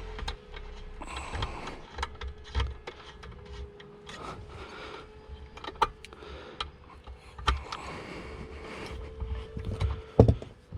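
Irregular clicks, taps and rattles of hand work on tools and wiring, with one sharp knock near the end.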